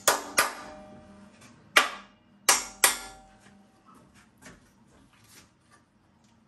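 Brass-headed hammer driving 5/16 bolts down into slots left too tight by the powder coat. Five sharp metallic strikes with a short ring: two right at the start and three between about two and three seconds in. Then only a few faint light knocks.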